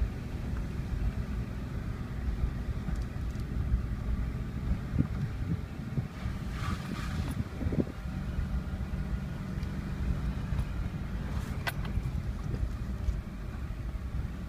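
Jeep driving slowly over a rutted dirt road, heard from inside the cabin: a steady low engine and tyre rumble with a few knocks and rattles from the bumps. A brief hiss comes about halfway through and a sharp click near the end.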